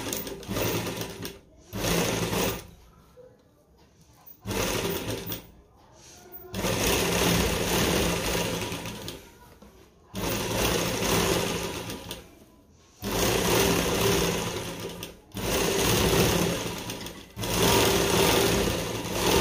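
Sewing machine stitching lace trim onto a neckline, running in short spells of one to three seconds with brief stops between them as the fabric is turned along the curve.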